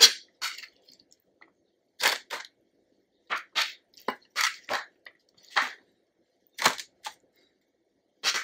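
A spoon scraping and pressing a wet black-bean and shredded-cabbage mixture onto sweet potato halves on parchment paper: about a dozen short scrapes and rustles at an uneven pace, over a faint steady low hum.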